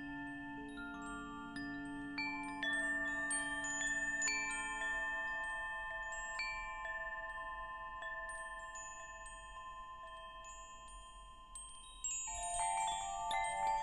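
Wind chimes ringing. A scattering of strikes leaves long ringing tones that slowly fade through the middle, then a fresh flurry of many strikes comes near the end.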